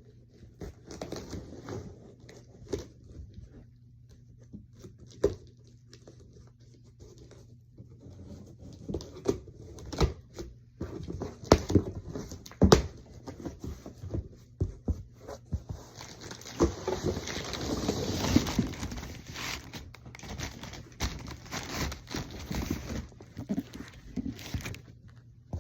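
A large cardboard box and its packing being opened and handled: scattered knocks and clicks, then a longer stretch of tearing and rustling about two thirds of the way through.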